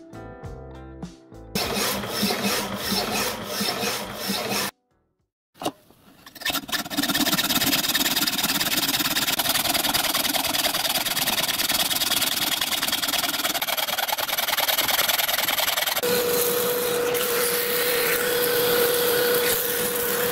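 Background music at the start, then a steel hacksaw blade rasping through steel conduit clamped in a vise. About three-quarters of the way through, a steady hum joins in.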